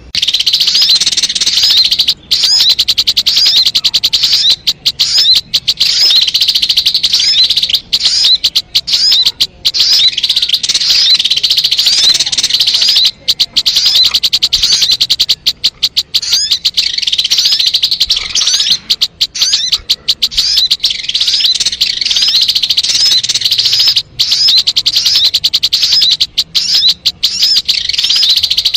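Recorded song of a sogon bird: rapid, high-pitched twittering chirps repeated almost without pause, the kind of call played as a lure to trap wild sogon birds.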